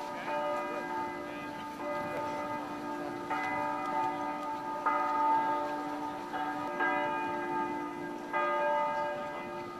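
Church bells ringing, a new stroke entering about every one to two seconds, each tone ringing on and overlapping the next.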